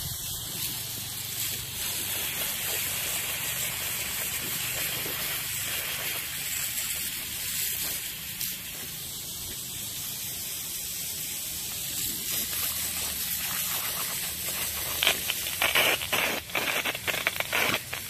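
Garden hose spraying a steady hissing jet of water across grass. From about fifteen seconds in, the sound grows louder and uneven.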